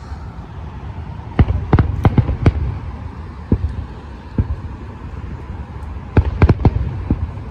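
Fireworks shells bursting overhead: a quick run of about five booms a little over a second in, a couple of single booms, then another tight cluster of four near the end, over a steady low rumble.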